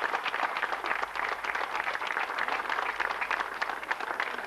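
Crowd applauding.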